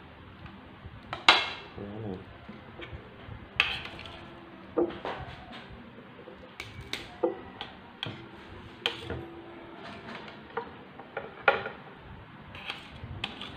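Metal spoons and forks clinking and scraping against ceramic plates during a meal, in irregular sharp clinks, the loudest a little over a second in.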